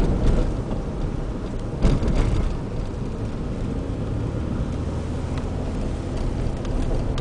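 Car driving, heard from inside the cabin: a steady low rumble of engine and tyre noise, with a brief knock about two seconds in.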